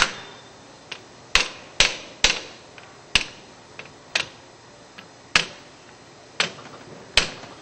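Rubber mallet striking the cable guard on a Grundfos 300S submersible pump to seat the guard's tabs down under the straps. About nine sharp knocks, irregularly spaced, with a few lighter taps between them.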